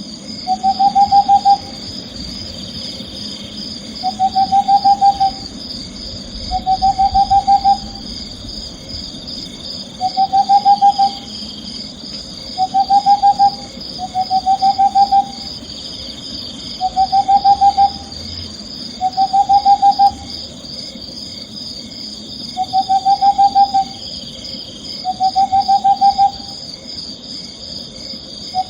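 An owl's trilled call, a quick run of pulses about a second long that rises slightly in pitch. It repeats every two to three seconds over a steady, high, faintly pulsing background.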